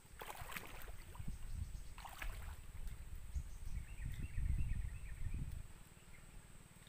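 Water splashing twice in the first half, over a low rumble, as an angler stands wading in a river.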